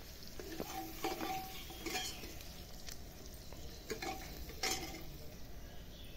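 Steel spoon scraping and stirring against the metal bottom of a pressure cooker, about six strokes, each with a short metallic ring, while chopped onion, garlic and green chillies fry and sizzle in the oil.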